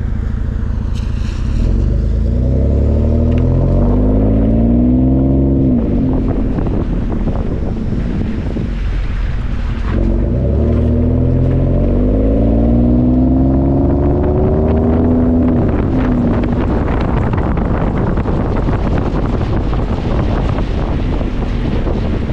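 Ford F-150's 3.5-litre EcoBoost twin-turbo V6 heard at the tailpipes through a Manta 3-inch cat-back exhaust, in sports mode, as the truck accelerates. The exhaust note rises in pitch twice, dropping back after each climb, then settles into a steady drone mixed with road and wind noise over the last several seconds.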